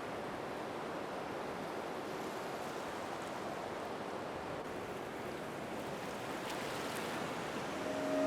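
Ocean surf: a steady wash of waves. Near the end, a sustained, held musical pad begins to fade in over it.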